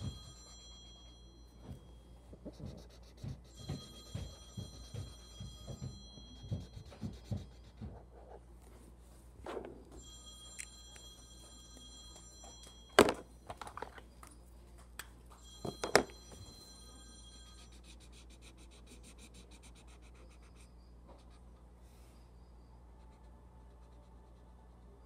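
Felt-tip marker scratching on paper in quick short strokes for the first eight seconds or so. Then two sharp clicks about three seconds apart, a marker cap being pulled off and snapped on.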